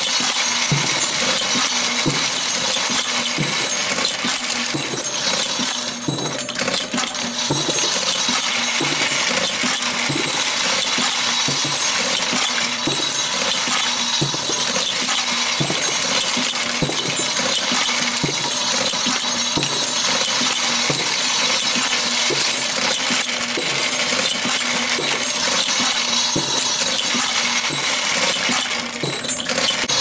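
A machine's row of spring-loaded plungers working over brass cylinders, running with a steady, regular mechanical rhythm of repeated clacks.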